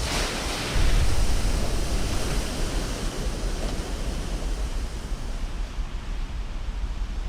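Big ocean waves breaking: a rushing roar of whitewater that surges about a second in, then slowly fades.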